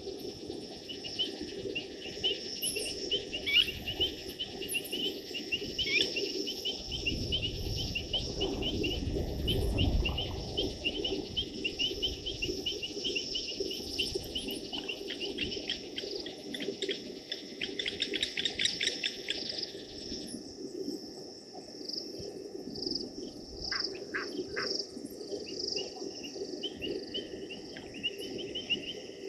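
Blacksmith lapwings giving rapid, repeated sharp 'tink' alarm notes that come thickest just before they break off about two-thirds of the way through, then resume faintly near the end. Night insects chirr steadily underneath, and a low rumble swells and fades about a third of the way in.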